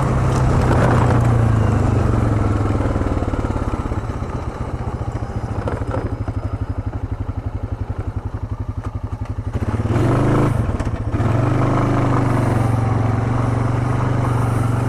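Quad (ATV) engine running. It drops to an even, slower putter for several seconds midway, then revs up again about ten seconds in and keeps running with the pitch wavering.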